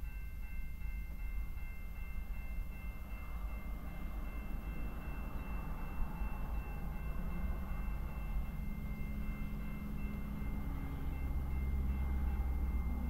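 Railroad grade-crossing warning bell ringing steadily with rapid repeated strokes, over a low rumble that grows louder near the end as the train approaches.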